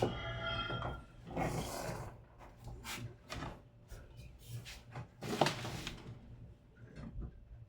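Scattered small clicks, taps and rubs of hands handling laptop parts and casing, with one louder knock about five and a half seconds in, over a low steady hum.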